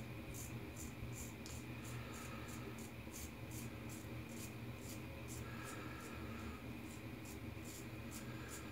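Safety razor with a Gillette stainless blade scraping through stubble in quick, short strokes, about three a second: a steady scritching of the blade cutting whiskers.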